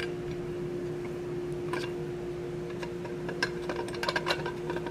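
Light metal clicks and clinks of a wrench and steel fullering dies being handled, sparse at first and more frequent over the last two seconds, over a steady hum.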